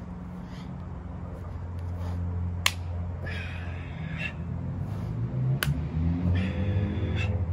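Two sharp snaps about three seconds apart, over a steady low rumble, with bird-like chirping after each snap.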